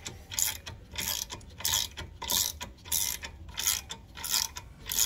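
Pass-through ratchet clicking in short bursts, about one every two-thirds of a second, as it is swung back and forth by hand to run the 19 mm nut down onto the upper ball joint stud. The stud is held still with an 8 mm wrench.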